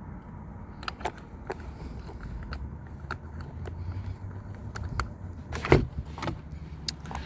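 Irregular small clicks and knocks of hands working the steering wheel's wiring plugs and zip-tied harness, with a low steady hum underneath; the loudest knock comes a little past halfway.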